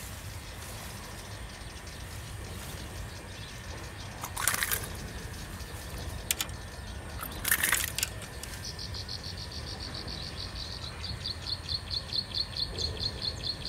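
A hooked snakehead splashing twice in short bursts as it is brought in. From about two-thirds of the way through, a bird's high chirp repeats three to four times a second.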